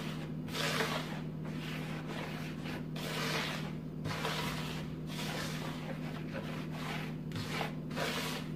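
Hands rubbing and tossing dry flour mixed with seeds in a plastic bowl, a dry swishing rasp in repeated strokes about once a second.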